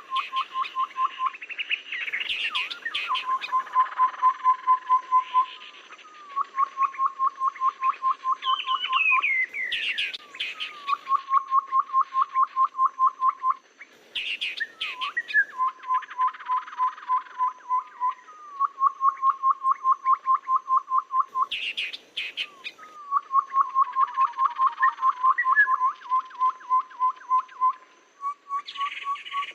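Tepus babbler song from a bird-lure recording. Runs of quick, evenly spaced low whistled notes, about ten to the second and lasting a second or so each, repeat every two to three seconds. Higher scratchy chirps and rattling calls fall between the runs.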